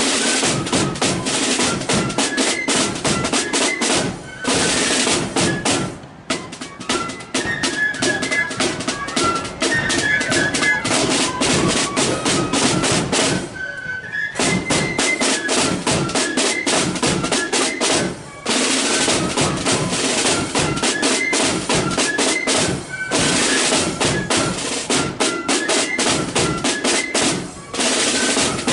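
Marching flute band playing a tune: high flute melody over snare drum rolls and bass drum beats, with a few short breaks in the drumming.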